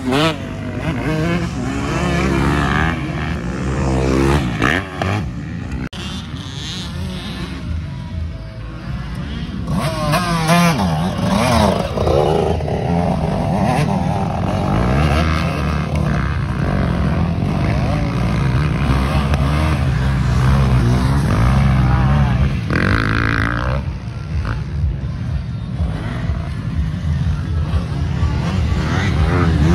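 Motocross motorcycle engines racing, revving up and down again and again as they accelerate and shift.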